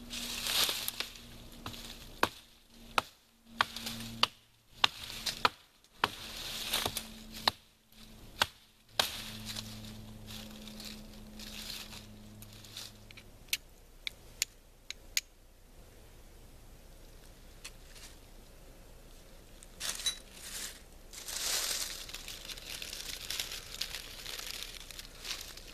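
Rotten wood being broken and torn off a dead branch to get at the sound core: a run of sharp cracks and snaps about a second apart, then a few fainter ticks. Dry leaf litter rustles near the end.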